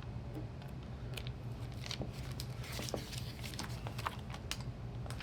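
Paper pages of an instruction booklet being handled and flipped: a run of small, irregular crisp rustles and clicks over a low steady hum.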